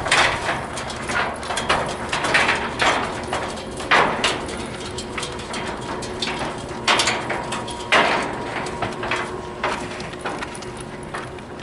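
Footsteps clanking on a metal marina gangway ramp: irregular knocks about every half second to second, with a faint metallic ring, growing quieter near the end.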